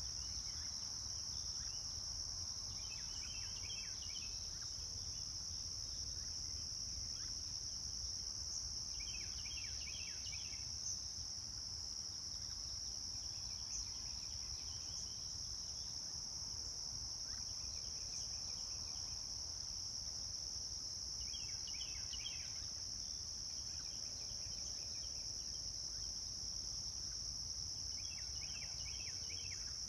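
Steady, high-pitched insect chorus that does not let up, with a short burst of rapid chirps from another caller returning about every six seconds.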